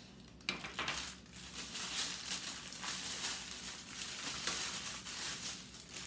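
Crinkly rustling of packaging being handled: a dense run of small crackles that starts about half a second in and eases off near the end.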